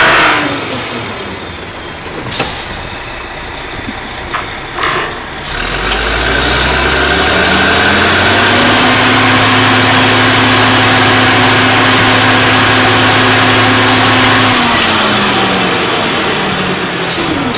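A workover rig's engine speeds up about six seconds in and holds a steady high speed for several seconds, with a high whine that rises and falls with it. It eases back down near the end. A few sharp metal clanks come before the run-up.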